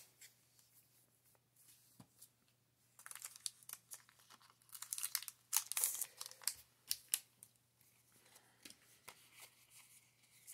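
Foil wrapper of a Pokémon Fusion Strike booster pack crinkling and rustling as the cards are pulled out of it, in crackly bursts that start about three seconds in and die down after about seven seconds.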